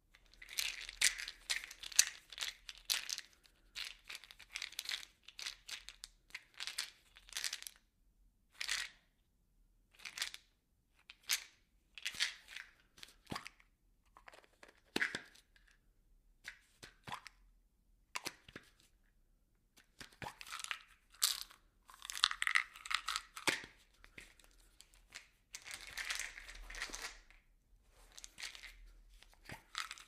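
Small objects rattling and tumbling inside a plastic bottle, in irregular bursts of clatter and sharp clicks with short gaps between.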